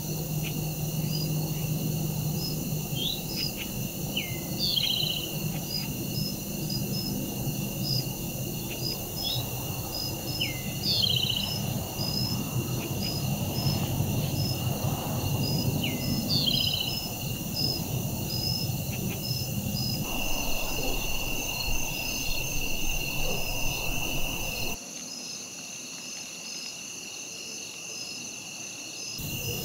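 Steady high-pitched trilling chorus of insects in a field, with a bird's call repeated three times about six seconds apart in the first half, over a low rumble that cuts out abruptly near the end.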